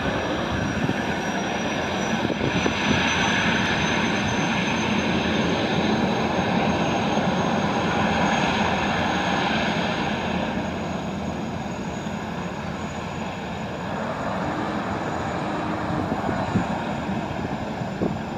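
Jetfoil's gas turbine engines running as the boat pulls away from port: a steady rushing jet noise with a thin high whine that rises slightly in pitch.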